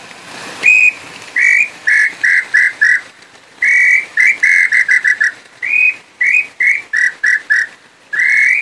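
Hand-blown wooden throat-type tinamou call (pio garganta) imitating the nambu pé-roxo. It whistles repeated phrases that each start with a longer, higher note and break into a quickening run of short, slightly lower notes.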